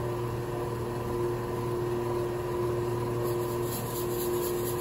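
Steady mechanical hum of a running electric motor, with faint rapid high-pitched crackling from about three seconds in.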